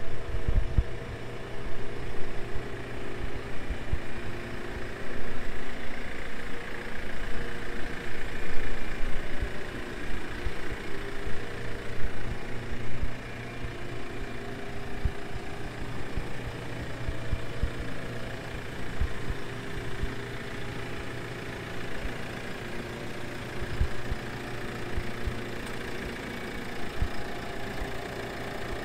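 Diesel engine of a JCB 536-70 telehandler idling steadily.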